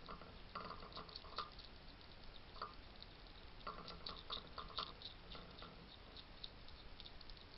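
Wild hedgehogs at a feeding station: irregular crunching clicks and short snuffling bursts, several in quick succession about four to five seconds in.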